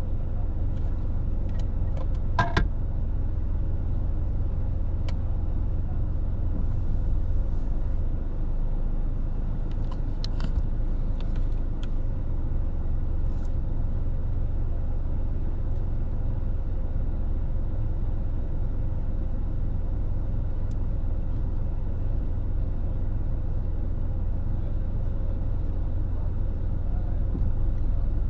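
Steady low rumble of road and engine noise from a car driving, with a few brief clicks and knocks: a sharper one about two seconds in and a small cluster around ten seconds.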